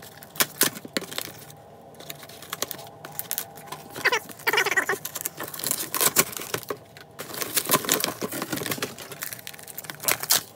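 Cardboard box being cut open and unpacked, played fast-forwarded: a quick jumble of clicks, scrapes and rustling, with short squeaky sounds about halfway through.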